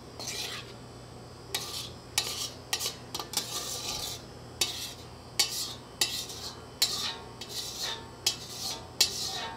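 A utensil scraping cooked ground meat out of a black wok into a stainless steel mixing bowl, with about a dozen short, irregular scrapes and clinks of metal on metal.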